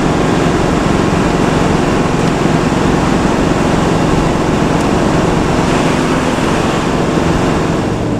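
Intercity bus running: a steady mix of engine and road noise.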